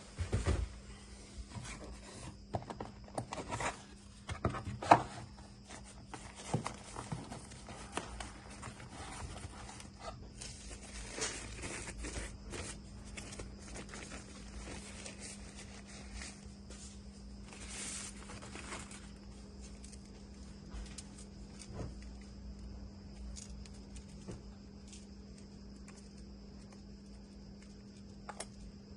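Packaging being handled during an unboxing: scattered clicks, taps and rustles of cardboard and plastic, busiest in the first two-thirds and thinning out near the end, over a steady low electrical hum and a faint high hiss.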